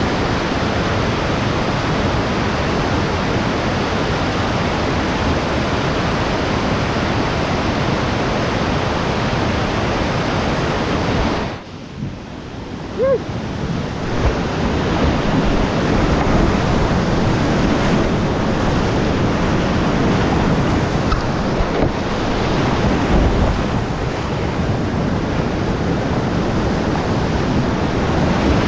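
Rushing whitewater of a rocky river rapid, a loud steady noise of churning water. About twelve seconds in it dips briefly, then carries on close up from the kayak, with splashing and a few low thuds of water hitting the microphone.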